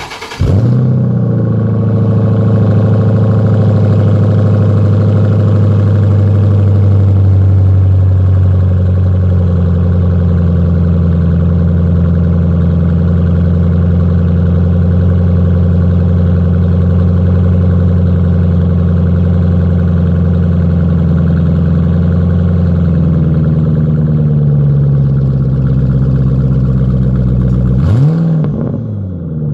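2008 Ford Mustang GT's 4.6-litre V8 cold-starting through a Pypes Pype Bomb cat-back exhaust: it catches at once and settles into a loud, steady fast idle. The idle note drops a little after about nine seconds, and near the end it rises and falls briefly.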